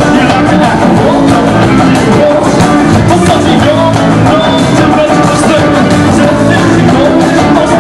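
Rock band playing live, with a man singing lead into the microphone.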